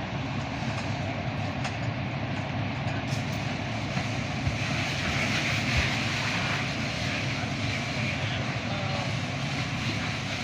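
Wind rushing over the microphone with a steady low rumble underneath, a little stronger in the second half.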